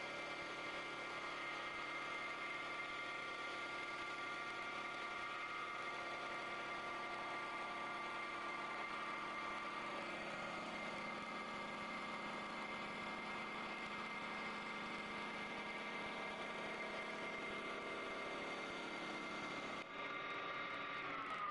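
CNC wood-turning lathe running, its spindle spinning a wooden baseball-bat blank while the cutter shaves it. It makes a steady machine whine of several tones over a hiss of cutting.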